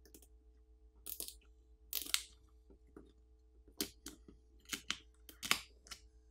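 Adhesive under a smartphone battery crackling and tearing in short, irregular bursts as the battery is pulled up from the frame by its pull tab.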